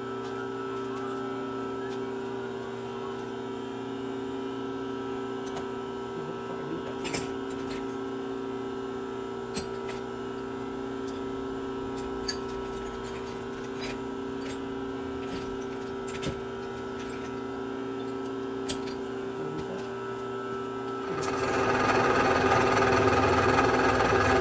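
Bridgeport milling machine running with a steady motor hum, with a few light clicks. Near the end, a louder, rougher machining noise comes in over the hum.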